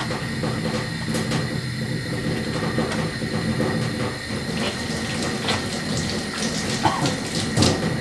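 Water running from a faucet into a stainless steel sink, with splashing as hands are washed under it; a few sharper splashes come near the end.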